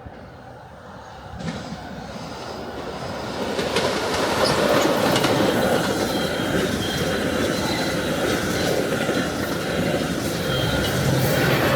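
Metra commuter train passing at speed, cab car leading. The steel wheels rumble and click over the rail joints, building from about a second and a half in and staying loud from about four seconds in.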